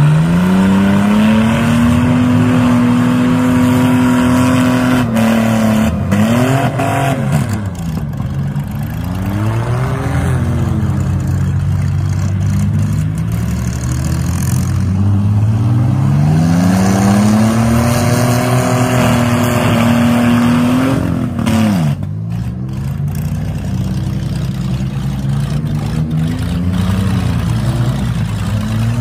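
Demolition derby minivan engines revving hard: twice the pitch climbs over a couple of seconds, holds high for a few seconds, then falls away, with short blips up and down in between and other engines running underneath.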